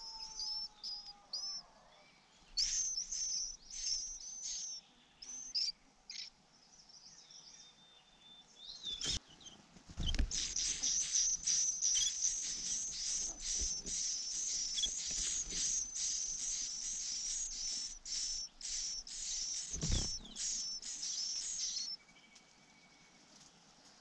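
White-eye nestlings begging for food with short, high-pitched cheeps. The cheeps come in scattered bursts at first, then in a rapid, almost unbroken run from about ten seconds in that stops shortly before the end. A dull thump is heard twice.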